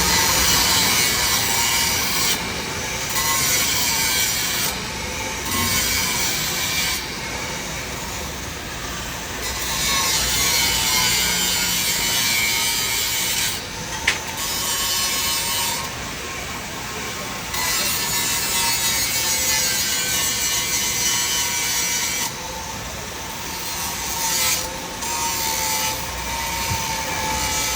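TIG (argon) welding arc on a pipe root pass, hissing steadily with a faint whine, the hiss dropping away briefly several times. A single sharp click about fourteen seconds in.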